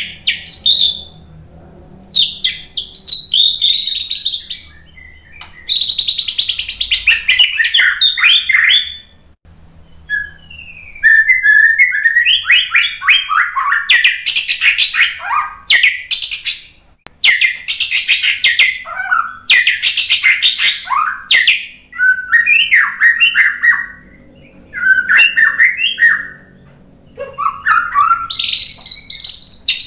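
White-rumped shama (murai batu) singing: a loud, varied song of fast whistles and rapid runs of notes, delivered in phrases of one to six seconds broken by short pauses.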